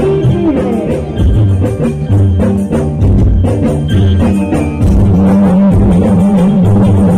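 Live band music played loud through a stage sound system, with a male singer on microphone over percussion. About five seconds in a long wavering note is held.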